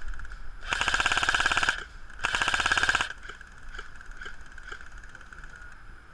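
G&P Stoner 63 airsoft machine gun firing two full-auto bursts of about a second each, in rapid even clatters with a short gap between them. A few fainter scattered shots follow.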